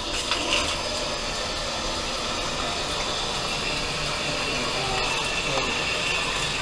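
Shower water running steadily.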